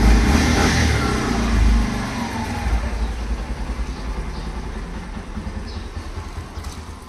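Small commuter motorcycle engine revving, loudest in the first two seconds, then running more evenly and fading as the bike pulls away.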